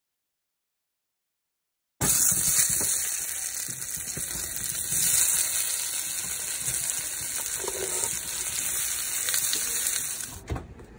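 Halved, already-boiled red potatoes sizzling in hot olive oil in a stainless steel skillet, their second cooking. The sizzle starts abruptly about two seconds in and cuts off shortly before the end.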